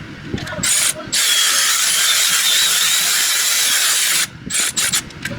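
Power tool running in one steady hissing burst of about three seconds that cuts off suddenly, with short blips of the trigger before and after it.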